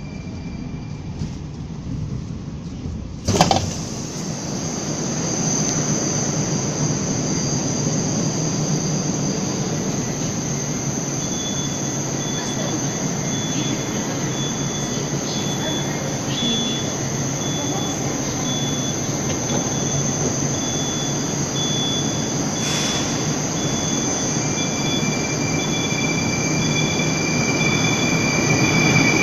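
81-760/761 "Oka" metro train standing at the platform, giving a steady hum with high whining tones and a faint, regular high beeping, then starting to pull away near the end as the sound grows louder. A sharp click about three seconds in.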